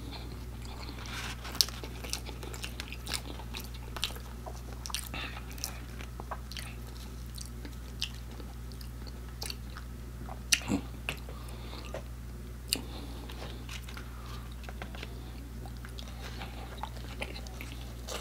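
Close-miked chewing and biting of fried chicken nuggets and a biscuit: scattered soft crunches and wet mouth clicks, with a few louder smacks standing out. A steady low hum runs underneath.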